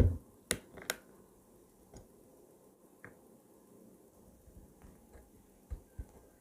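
Clicks and knocks of a Rolex Datejust's metal bracelet being taken off the watch case at a workbench: a knock at the start, two sharp clicks within the first second, then faint scattered clicks and two soft knocks near the end.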